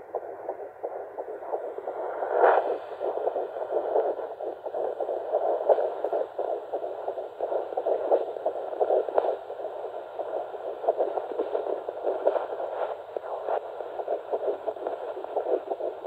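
Fetal heartbeat through the speaker of a Huntleigh Dopplex FD2 handheld fetal Doppler: a fast, steady pulsing, much faster than the mother's own heartbeat.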